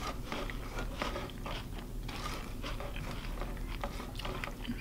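A person chewing a mouthful of crunchy cereal (Cinnamon Toast Crunch and granola in milk) close to the microphone: a run of small, irregular crunches.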